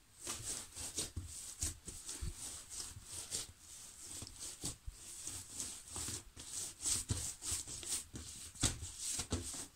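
Hands pressing, folding and rolling soft risen yeast dough on a countertop: irregular soft squishes and slaps of the dough, with light taps on the counter.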